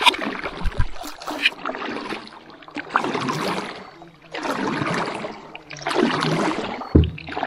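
Small hand paddles stroking through lake water, a steady rhythm of splashing pulls about every second and a half. There is a single knock near the end.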